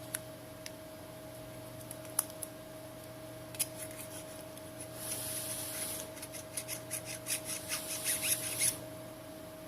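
Quick scraping and rubbing strokes, about three or four a second, as the messy back of a Samsung Galaxy S7 is cleaned, preceded by a few sharp isolated clicks and a brief hiss. A steady electrical hum runs underneath.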